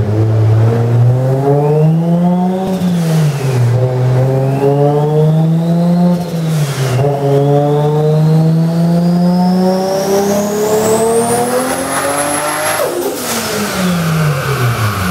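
Turbocharged Toyota 1JZ straight-six with a BorgWarner turbo at full throttle on a chassis dyno. The revs climb, drop at two gearshifts, then climb through one long pull with a rising turbo whistle. Near the end a sudden rush of noise comes as the revs fall away.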